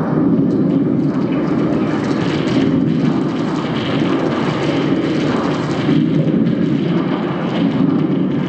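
Soundtrack of a volcano-themed moving-image installation: a loud, steady, low rumbling noise whose hissing upper part swells and fades every second or two.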